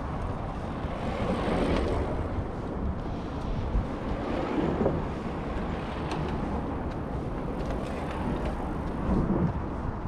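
Steady low outdoor rumble, with wind buffeting the microphone in slow swells.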